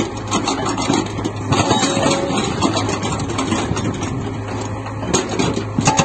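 Hyundai R80 excavator's diesel engine running with a steady low hum while its SSI SB43 hydraulic breaker is worked on rock; a quick run of sharp hammer blows from the breaker comes near the end.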